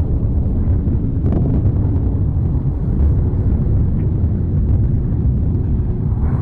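Mount Etna erupting: a deep, continuous rumble with a faint crack about a second in.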